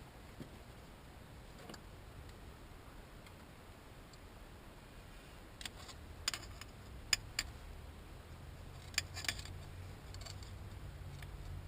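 Faint low hum with about six sharp clicks and taps, bunched in the middle of the stretch.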